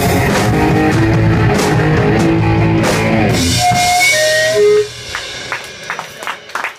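Live rock band playing loud with guitar and drums, the song ending about five seconds in on a few held single guitar notes stepping downward. After that only scattered clicks and low room noise.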